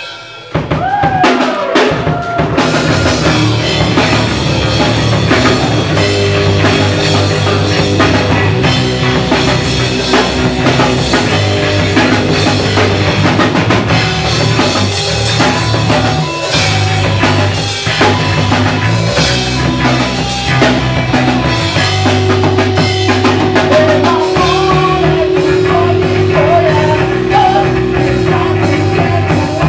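Live rock band playing loud on electric guitar and drum kit. It kicks in about half a second in.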